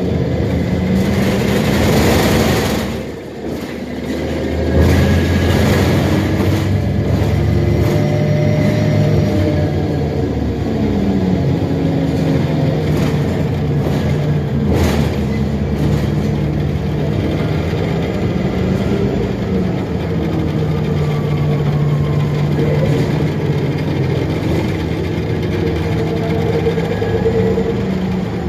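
Interior of a 2006 Orion VII hybrid transit bus on the move: the hybrid drivetrain hums steadily, its pitch gliding up and down as the bus speeds up and slows, over road noise and rattles. A loud rush of noise comes about two seconds in, with a sharp knock near the middle.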